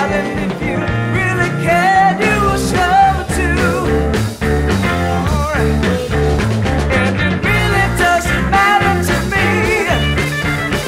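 Rock band recording from around 1970 playing, with a lead line bending up and down in pitch over a steady backing of bass and drums.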